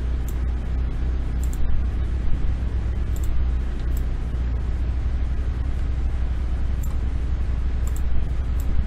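Steady low rumbling background noise with a hiss over it, and a few short sharp clicks from a computer mouse scattered through it.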